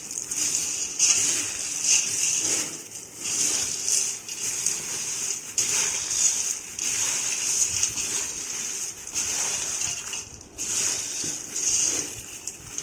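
Crisp fried snack mixture of sev, boondi and peanuts being stirred and tossed in a bowl, a dry rustling crunch in repeated swishes about every half second to a second, as the sprinkled salt and chilli powder are mixed through.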